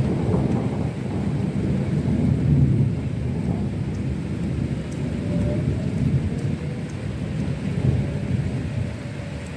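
Thunder rumbling and rolling during a thunderstorm, loudest about two and a half seconds in and swelling again near the end, over steady rain.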